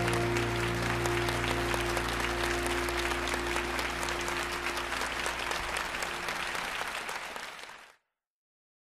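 Studio audience applauding over the band's last held chord, which rings on underneath. Both fade out about eight seconds in, leaving silence.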